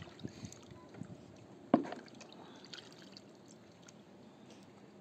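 Hands working small fruit in a plastic basin of water, with light sloshing and drips and small scattered clicks; one sharp tap just under two seconds in is the loudest sound.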